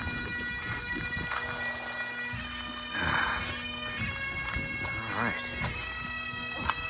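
Bagpipes playing, with a steady drone held under the tune.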